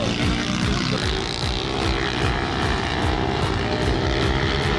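Several minibike engines buzzing and revving as a pack of pitbikes races past, with overlapping engine notes rising and falling in pitch.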